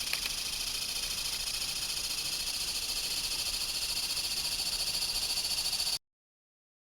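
A steady, high-pitched chorus of calling animals, pulsing rapidly, that cuts off abruptly to silence about six seconds in.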